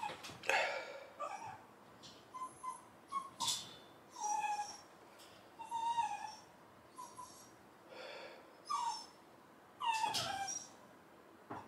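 A dog whimpering and whining in a run of short, high calls, some sliding down in pitch, repeating every second or so with a few short sharp sounds among them.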